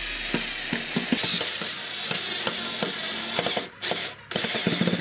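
Cordless drill-driver driving wood screws into a wooden shelf, a dense run of rapid clicks and whirring. It stops briefly twice about three-quarters of the way in as it moves to the next screw.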